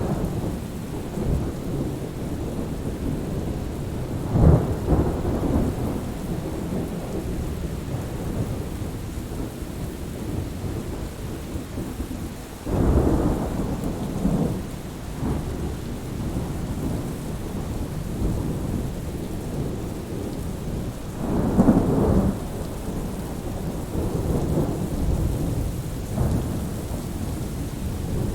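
Thunderstorm: steady rain with low, rolling rumbles of thunder, three louder rolls spaced about nine seconds apart and fainter ones between.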